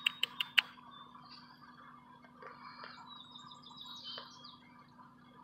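A quick run of sharp clicks, about five a second, that stops half a second in, then faint bird chirps and a short whistle over a steady low hum.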